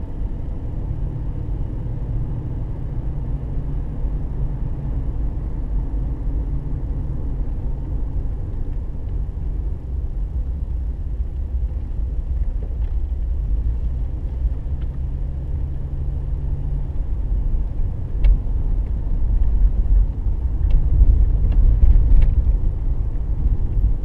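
A car driving at low speed: steady low engine and road rumble, heard from on board. It grows louder and rougher over the last several seconds, with a few short knocks.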